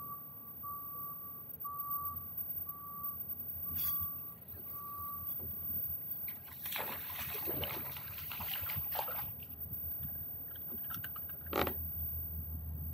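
A steady series of short electronic beeps, about one every three-quarters of a second, stops about six seconds in. Then comes a few seconds of water splashing as a small bass is hooked and fights at the surface, and a single sharp click near the end.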